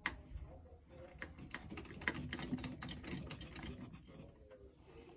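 The NZXT Kraken 360 pump block's mounting screws being turned down by hand: a sharp click at the start, then a run of small clicks and scraping that grows louder in the middle and thins out near the end.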